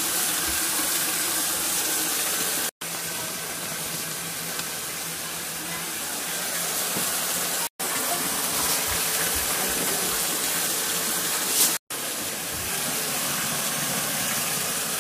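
Water from a bathtub tap gushing steadily into a filling tub. The sound cuts out for an instant three times: about three, eight and twelve seconds in.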